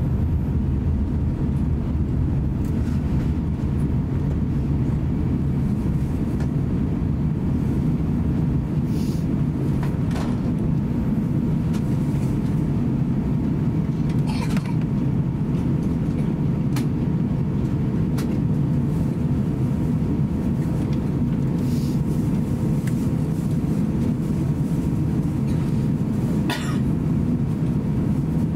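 Cabin noise of an Airbus A350-900 taxiing: a steady low rumble from its Rolls-Royce Trent XWB engines at taxi power, with a faint steady hum. A few light clicks or knocks come and go.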